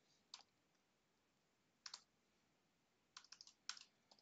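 Faint keystrokes on a computer keyboard while typing: a single tap, another about a second and a half later, then a quick run of several taps near the end.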